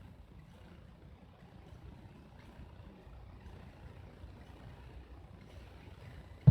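Low rumbling lull between firework bursts, with a few faint distant pops. A loud firework shell burst booms right at the very end.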